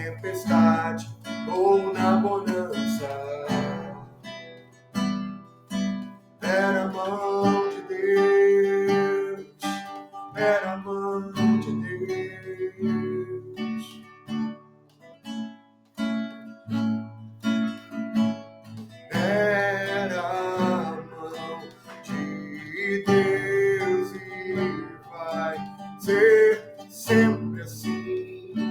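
Acoustic guitar strummed in a steady rhythm, accompanying a worship song, with a voice singing several drawn-out phrases over it.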